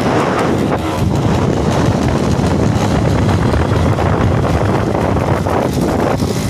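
Wind rushing over the microphone while travelling along a road, a loud, steady buffeting with the vehicle's running noise underneath.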